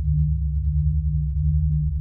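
Low electronic drone of several steady deep tones that swell and fade gently, with faint, scattered light ticks above it.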